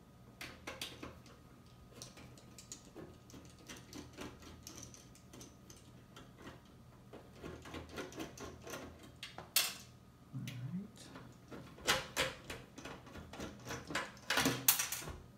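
Hands working a power supply loose inside an In Win A1 mini-ITX PC case: a string of light clicks, knocks and scrapes of metal and plastic parts. They come thicker and louder in the second half, with the loudest knocks near the end.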